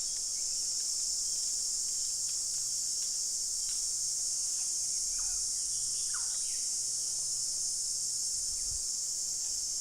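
Steady, shrill insect chorus of forest crickets or cicadas, with a few faint short bird chirps in the middle.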